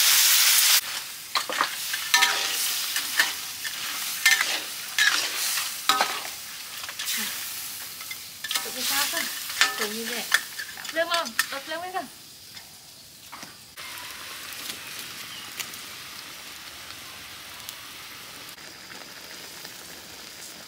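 A metal spatula scrapes and knocks against a wok as crayfish are stir-fried in sauce, over steady sizzling. The clatter stops about two-thirds of the way through, and only the quieter sizzle of the simmering sauce is left.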